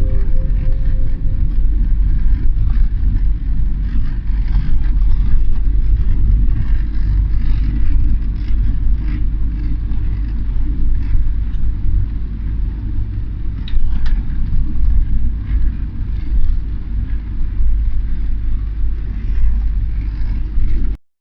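A car driving along a road: a steady low rumble of engine and tyres, which cuts off suddenly just before the end.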